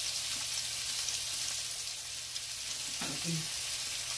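Hamburger patties sizzling in their own grease on a stovetop griddle, a steady hiss.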